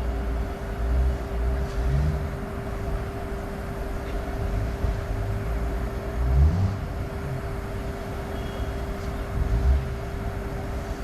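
Indian Railways WAG-12 electric locomotive hauling a freight train at slow speed, with a steady whirring hum held on one pitch over a low, uneven rumble.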